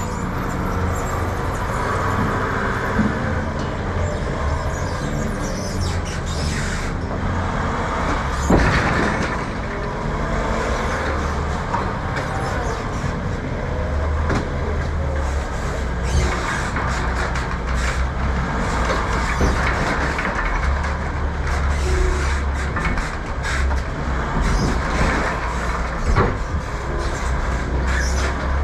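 Forklift engine running and working, its low rumble rising and easing as it moves and lifts, with occasional sharp knocks and clatters as pallets and forks meet the trailer bed.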